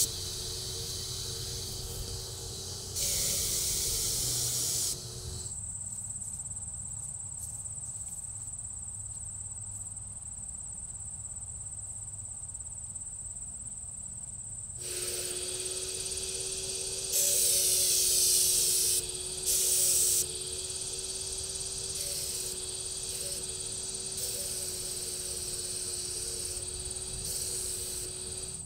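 HVLP spray gun hissing in bursts of a second or two as paint is sprayed, over the steady hum of its turbine. The hum drops out for several seconds in the middle and then returns.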